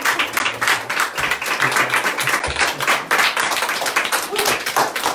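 A small group clapping, many quick irregular claps.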